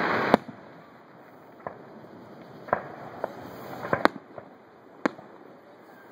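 Aerial firework shells bursting in the sky: about eight sharp booms at uneven intervals, the loudest about four seconds in. A loud hiss at the very start is cut off by the first bang.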